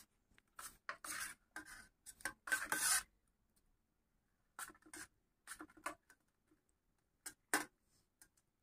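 Steel spoon scraping and scooping through khichdi in a steel plate: a string of short scrapes in two clusters with a pause between, and one more near the end.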